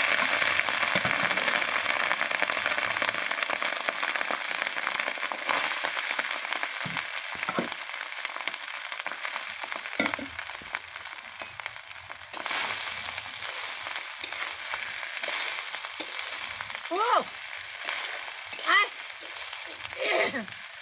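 Cooked rice sizzling as it is ladled into hot oil in a large aluminium kadai over a wood fire, loudest at first and settling to a steadier, quieter frying hiss, with a few knocks of the ladle. A few short sliding cries come near the end.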